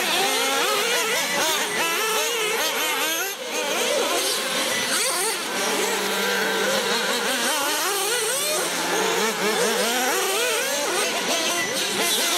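Several radio-controlled off-road buggies racing, their small motors whining and revving up and down in overlapping pitches.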